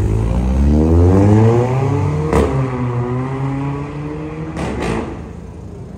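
A Volkswagen Polo hatchback's engine revving hard as the car accelerates away, its pitch climbing for about two seconds. A sharp pop comes at the top of the rev, then the engine runs lower. Two more quick pops come near the end as the sound fades.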